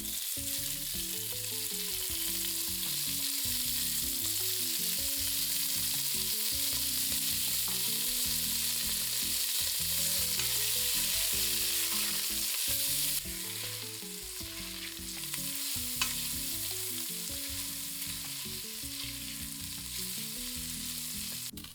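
Diced pancetta sizzling and browning in hot olive oil in a pot, a steady crackling hiss. The sizzle eases off somewhat about 13 seconds in.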